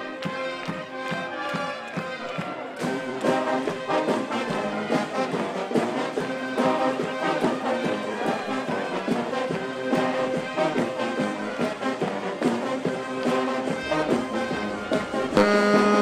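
Street brass band playing: trombones, trumpets and other horns holding notes over a steady percussive beat. The music shifts to a louder horn passage just before the end.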